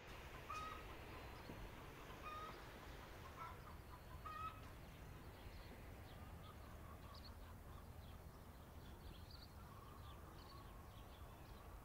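Faint outdoor ambience with a low rumble and a handful of short bird calls, most of them in the first few seconds, followed by fainter high chirps.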